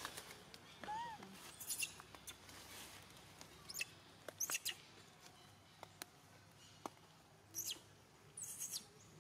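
Faint short, high chirps and squeaks from small animals, with scattered sharp ticks and one brief rising-and-falling call about a second in.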